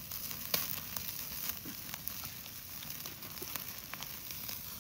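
Chicken pieces sizzling on a wire mesh grill over an open wood fire, with the fire crackling in frequent sharp pops, one louder pop about half a second in.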